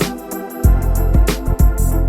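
Background music: sustained low bass and keyboard or organ-like chords over a steady beat of sharp percussion hits.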